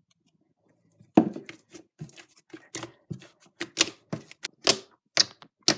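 Thick glue slime made with shaving cream and borax activator being kneaded by hand, giving irregular wet clicks and pops, several a second, starting about a second in.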